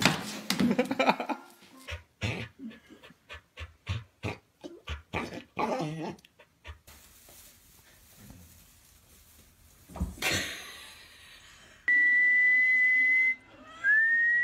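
Small dog barking in a fast run of short barks, followed later by a single thump. Near the end come a steady high tone lasting about a second and a half and a short rising tone.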